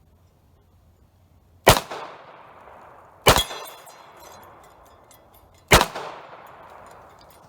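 Three pistol shots about two seconds apart, each trailing off in a long echo. The second is followed by a brief metallic ring from the steel plate target.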